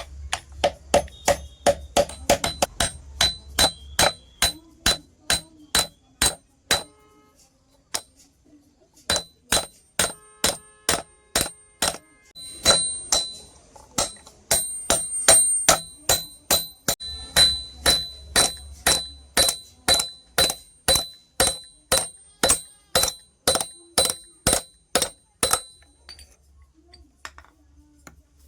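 Blacksmith's hand hammer striking metal on an anvil in a steady rhythm of about two to three ringing blows a second, pausing briefly a third of the way in and stopping near the end.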